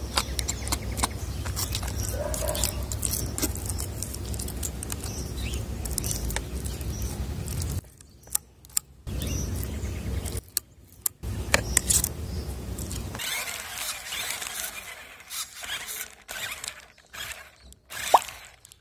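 Clicks, metallic scrapes and squelches of a tin of wet cat food being handled and its food spooned onto a plastic dish, over a low steady rumble that cuts out abruptly a few times.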